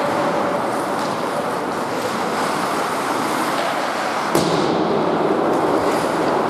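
Steady ambient noise of an ice hockey game in play in an indoor rink, skates working the ice, with one sharp knock about four seconds in.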